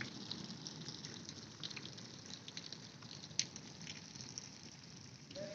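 Faint steady rush of flowing floodwater, with light scattered drips and trickles and one sharper tick about three and a half seconds in.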